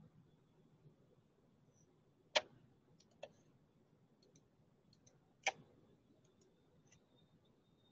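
Computer mouse clicks: two sharp clicks about three seconds apart with a softer one between them, and a few faint ticks, over a low background hiss.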